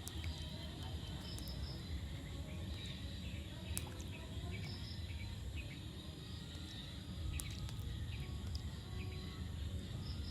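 Rainwater dripping after a rain shower: scattered sharp drips over a steady low rumble, with faint high chirps now and then.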